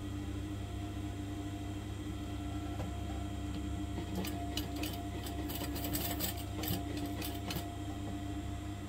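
Sewing machine stitching fabric: a steady motor hum runs throughout, and about four seconds in there is a quick run of clicking that lasts roughly three seconds and then stops.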